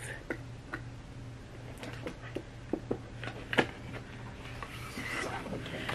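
Plastic protective sleeve crinkling and rustling as an art print is worked out of it by hand, in scattered small clicks and scrapes, a few sharper ones about halfway through, over a faint steady low hum.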